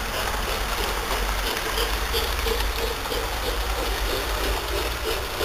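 LGB garden-scale electric model train running along its track, with a regular pulsing about two or three times a second over a steady hiss and low rumble.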